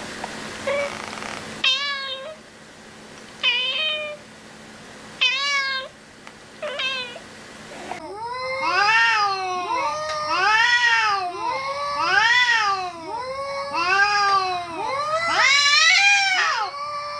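Cats meowing: a few short, separate meows, then from about eight seconds in a loud, unbroken run of long rising-and-falling meows, about one a second.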